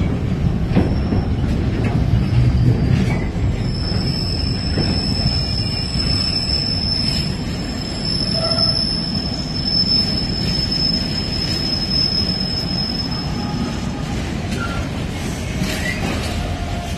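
Container freight train's wagons rolling past: a steady low rumble of wheels on rail, with a high, thin wheel squeal held for most of the time that stops a few seconds before the end.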